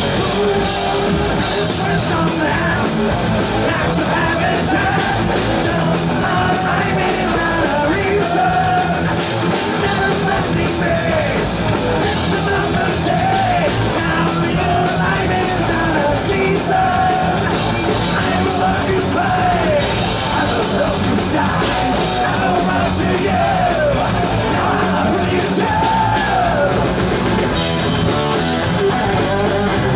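Live heavy metal band playing loud: electric guitars, bass guitar and drum kit, with a singer's vocals over them.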